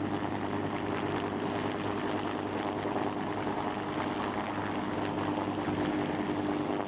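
Bell AH-1 Super Cobra-family attack helicopter hovering low, its rotor and twin turboshaft engines giving a steady, even sound with a held low tone.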